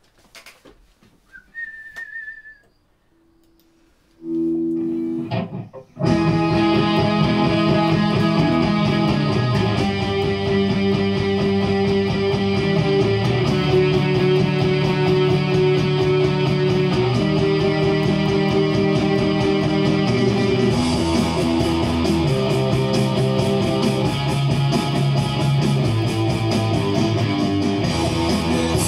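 Harley Benton SC Custom electric guitar, played through a Line 6 Spider V amp into a 2x12 Celestion Vintage 30 cabinet, playing rock riffs along with a full-band track with drums. The band comes in loud about six seconds in, after a few soft clicks and a short held note.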